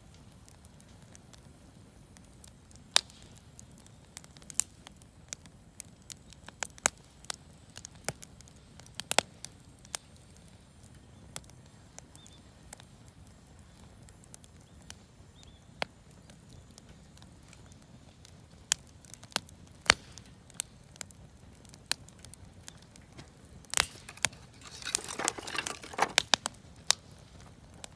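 Campfire of scrap-wood offcuts and firewood crackling, with irregular sharp pops and a denser flurry of crackles near the end.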